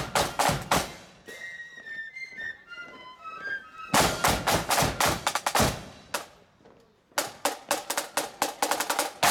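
Marching flute band's parade side drums playing fast strokes in a march rhythm. About a second in the drums give way to a short, quieter run of high flute notes, then the drumming comes back about four seconds in, stops briefly, and starts again near the end.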